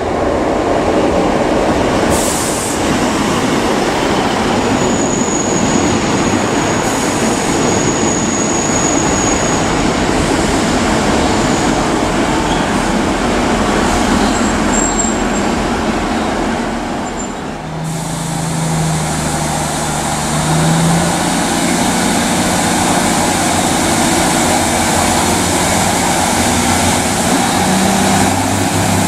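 British Rail Class 150 Sprinter diesel multiple unit running into a platform, its wheels and underfloor diesel engines loud and steady, with a high squeal for a few seconds as it slows. After a sudden change about 18 seconds in, the unit approaches again with a low engine hum that rises and falls.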